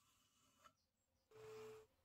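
Near silence: room tone, with a faint short hum about halfway through.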